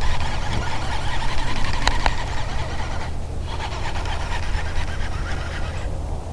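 Wind buffeting the microphone as a steady low rumble, with two sharp clicks about two seconds in.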